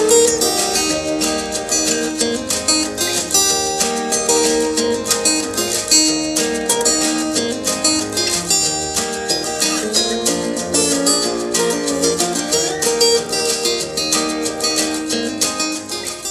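Acoustic guitar music, quick plucked and strummed notes, played through a ZNT AirBox mini portable Bluetooth speaker as a sound test.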